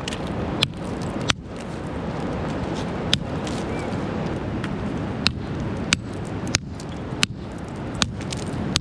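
Hammers striking rock as stones are crushed by hand: sharp cracks, about one a second at an uneven pace, over a steady rushing noise.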